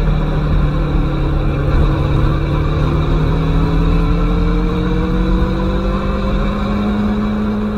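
Aprilia Tuono motorcycle engine running under steady throttle while riding, its pitch rising slowly as the bike gains speed, over a constant rush of wind and road noise.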